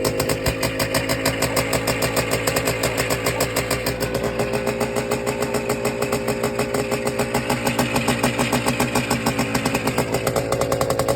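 Minsk-125 motorcycle's single-cylinder two-stroke engine running steadily with even firing pulses, cold, with the choke pulled out just after a cold start.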